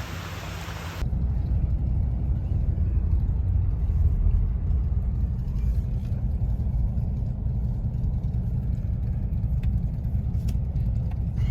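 A brief hiss of surf and wind, then a sudden cut to the steady low rumble of a car on the move, heard from inside the cabin, with a few faint clicks.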